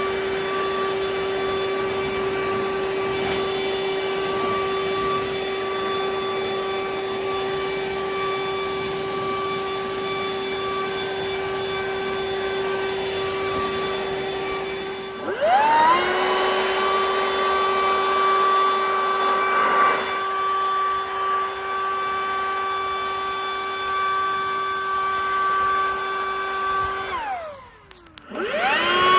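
Makita XGT 40-volt cordless brushless blower running, a steady motor whine over rushing air. About halfway in the pitch dips briefly and the blower spins back up louder, and near the end it winds down to a stop and spins straight back up again.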